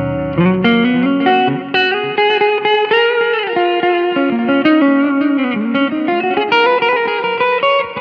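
Electric guitar played through an M-VAVE Tank-G multi-effects preset: a single-note melodic lead line with slides and bends between notes, the notes ringing on.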